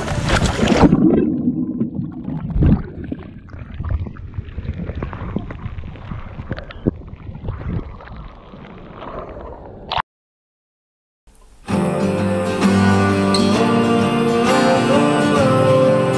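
Water sloshing and gurgling around a camera held at the sea surface, muffled, with small splashes and clicks; it cuts off abruptly about ten seconds in. After a second of silence, acoustic guitar music begins, strummed and plucked.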